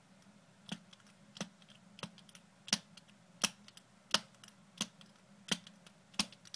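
Bump key in an American Lock 5100 series padlock being tapped over and over: sharp clicks at an even pace of about one every 0.7 seconds, the strikes meant to jar the pin tumblers so the lock turns open.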